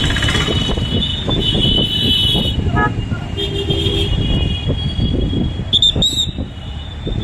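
Steady low rumble of road traffic, with a short vehicle horn toot about three and a half seconds in and two brief high squeaks a little before six seconds.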